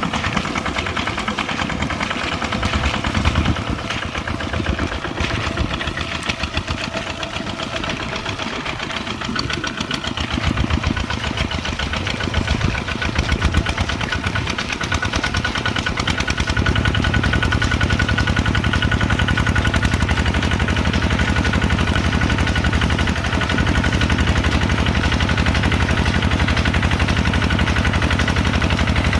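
Kubota RT140 single-cylinder diesel engine running with a rapid, even beat; it wavers in loudness at first, then from about halfway through runs louder and steadier.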